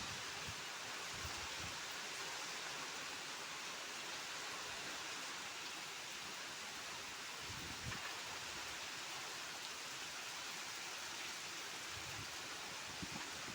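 Steady rain falling, an even hiss, with a few soft low knocks about eight seconds in and again near the end.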